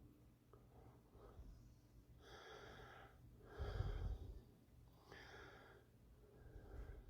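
A person breathing close to the microphone: three soft breaths about a second and a half apart, the middle one loudest, with a low rumble.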